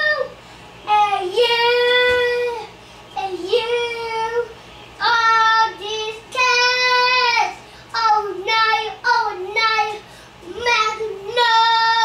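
A young child singing in a string of short phrases with brief pauses between them, many notes held steady for about a second.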